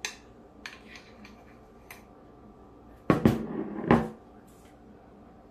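A spoon clicking and scraping against a glass mixing bowl of frosting, then a short, louder clatter of knocks about three seconds in as the glass bowl is set down on the countertop.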